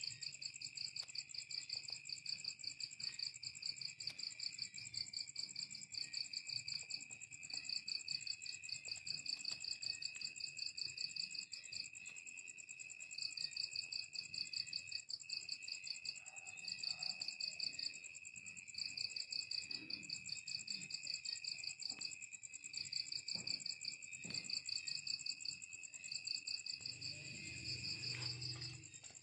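Several crickets trilling together: one high trill pulsing in runs of a few seconds with short pauses between them, over a continuous higher trill and a steady lower one. A brief low rumble near the end.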